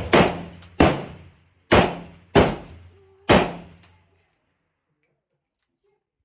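AR pistol fired five times in quick succession, about a shot a second, each crack trailing off in a short echo. Then the firing stops.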